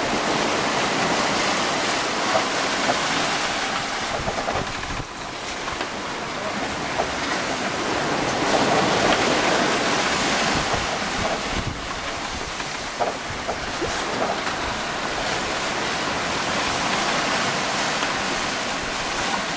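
Rushing water and breaking waves along the hull of a Bavaria 34 sailing yacht reaching at nearly 10 knots, with gusty wind buffeting the microphone. The rush swells to its loudest about eight seconds in, then eases back.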